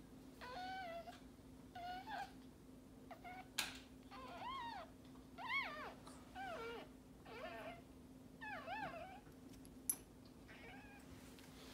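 Newborn Maltese puppy crying: about nine short, high cries, each rising and falling in pitch, over a faint steady hum.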